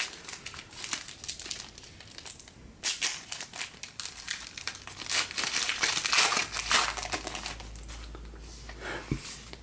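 Foil trading-card pack wrapper crinkling and tearing as a pack is opened by hand, in uneven crackly bursts that die down near the end.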